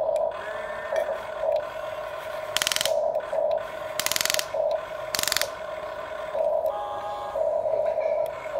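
Huina remote-control toy excavator's electric gear motors running as the boom, arm and bucket move, a steady whine that swells and dips, with three short, loud rattling bursts of gear noise about 2.5, 4 and 5 seconds in.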